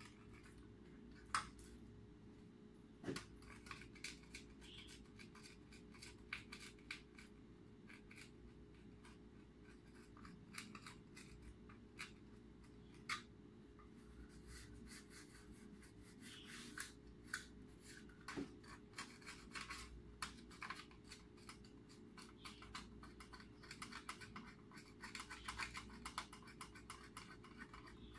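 Small hand cutters snipping and clicking on LED module wiring, with light scraping and handling of the wires: irregular, faint strokes with a few sharper snaps. A faint steady hum runs underneath.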